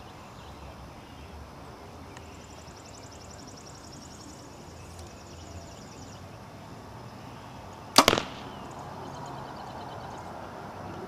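A stock Strother Rush compound bow, a 6.5-inch brace height speed bow with no limb or string dampeners, shot once. There is a single sharp crack of the string at release about eight seconds in, then a second hit a split second later as the arrow strikes the target.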